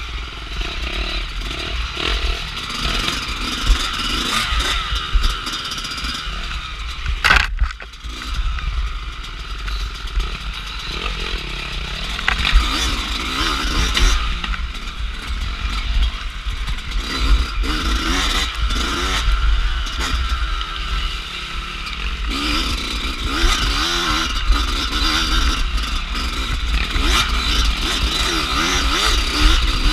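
Off-road dirt bike engine heard from a camera on the moving bike, its revs rising and falling continuously, with a steady low rumble and rattling underneath. The engine note drops briefly about seven seconds in, then picks up again.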